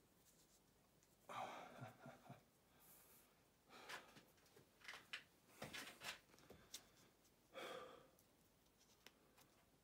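Very faint: a few soft breaths and sighs, with light rustling and small clicks as a cloth tape measure is wrapped around an upper arm.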